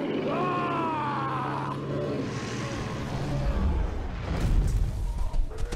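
Film soundtrack of a woolly mammoth trumpeting: one call lasting about a second and a half that rises and then falls, over a low held tone. From about three and a half seconds in, a deep rumbling builds.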